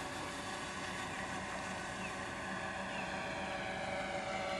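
Electric motors and propellers of a radio-controlled Hughes H-4 Hercules scale model droning steadily in flight, a few even tones together, getting a little louder near the end.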